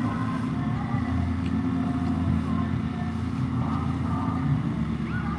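A steady low motor hum, like an engine running nearby, lasting throughout, with faint distant voices over it.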